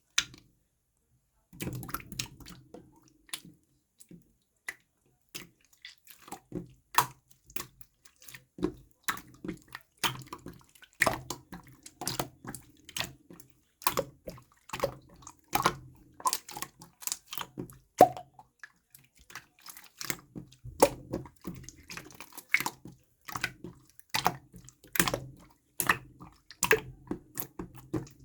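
Clear slime being squished and worked by hand, giving wet pops and clicks, a few each second at an irregular pace, starting about a second and a half in.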